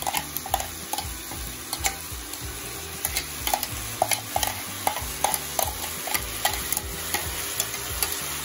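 Jackfruit, onion and tomato sizzling in mustard oil in a kadhai, while a metal spoon scrapes ground masala paste out of a steel bowl, giving repeated sharp clinks of spoon on metal a few times a second.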